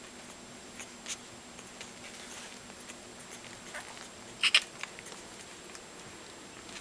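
Two-week-old Soft Coated Wheaten Terrier puppies giving scattered short, high squeaks as they crawl about. The loudest is a quick pair of sharp squeaks a little past halfway.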